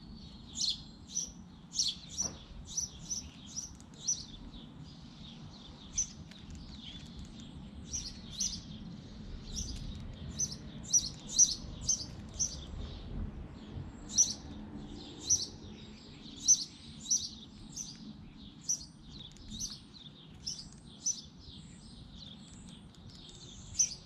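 House sparrows chirping: short, high chirps in quick runs of several, repeating on and off throughout.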